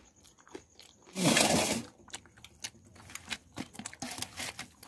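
Crisp fried fuchka (puri) shells being crushed by hand into a potato mix in a steel plate for churmur: a run of small crackling clicks, after a loud rough burst of noise about a second in.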